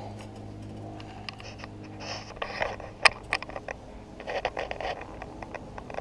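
Vinegar-soaked steel wool scrubbing rust off the metal dome of an air-conditioner compressor, in irregular rasping strokes that begin about a second in, with one sharp knock near the middle.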